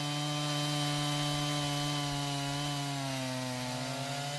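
Chainsaw running steadily at high revs while milling a log on a chainsaw sawmill, its pitch sagging slightly near the end.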